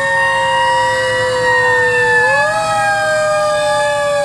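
Fire truck sirens wailing: long held tones that drift slowly downward, with one rising sweep about two seconds in.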